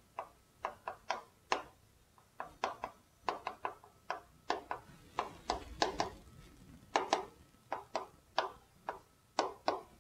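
Chalk writing on a blackboard: a quick, irregular run of short taps and scratches as each stroke of a word is drawn.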